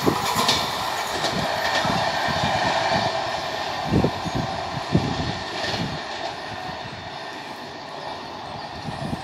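Passenger train's coaches rolling away along the track, the wheel rumble and rail clatter slowly fading as the rear coach recedes. A couple of louder knocks come about four and five seconds in.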